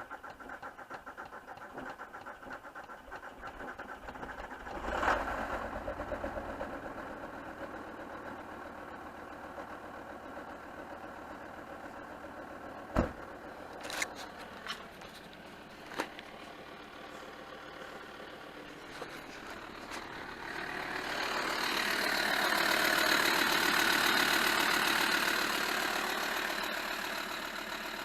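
A VW Touareg's 2.5 R5 TDI five-cylinder diesel running from cold; the owner puts its poor running down to bad injectors. It gets suddenly louder about five seconds in and gives a few sharp knocks midway. Near the end a swell of louder noise builds and then fades.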